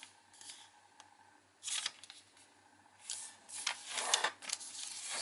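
A sheet of origami paper being folded and its crease pressed flat with the fingers: a few short rustles, then a longer run of scraping swipes from about three seconds in.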